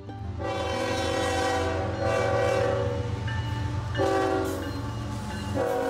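Locomotive air horn sounding a multi-tone chord in long blasts that run into one another, the chord shifting about two and four seconds in and again near the end. A steady low rumble of the train runs underneath.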